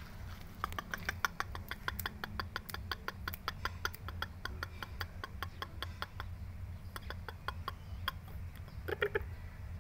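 Chickens clucking: a rapid run of short clicky clucks, several a second, then a louder burst of clucks near the end.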